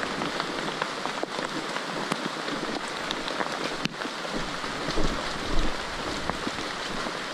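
Steady hiss of rain falling on dense forest foliage, with many scattered sharp drop ticks.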